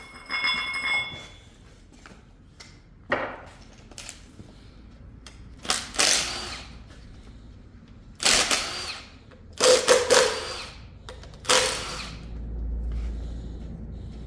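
A power tool run in about five short bursts a couple of seconds apart, its motor pitch gliding up and down in each burst, while bolts are taken out to remove the water pump from a Chevy Cruze 1.4 turbo four-cylinder engine.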